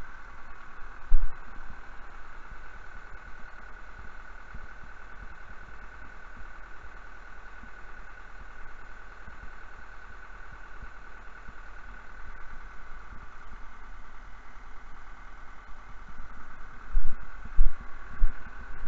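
Tractor engine running steadily at idle, with a low thump about a second in and a few more near the end.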